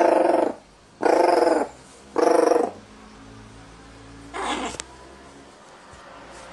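Pet crow giving three loud, drawn-out harsh calls about a second apart, the baby-like 'ogyaa' cry it repeats after its perch was replaced. A shorter, quieter call follows about four and a half seconds in and ends in a sharp click.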